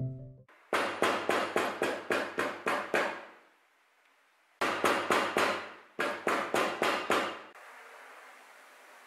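Light hammer blows on the stitched leather card holder, about three a second, in two runs of eight or nine taps with a short pause between them. Faint steady room hiss follows.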